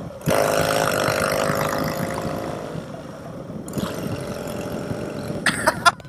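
Yamaha XS650 chopper's 650 cc parallel-twin engine under way, pulling hard as the throttle opens about a quarter second in after a gear change. It then eases off and quietens over the next few seconds.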